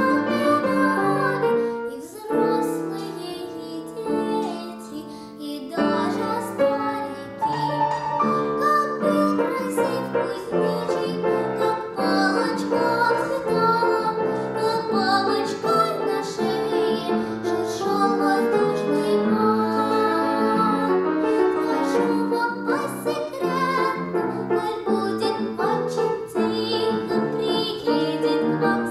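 A young girl singing a song in a classical (academic) vocal style with piano accompaniment; the music goes softer for a few seconds early on, then builds again.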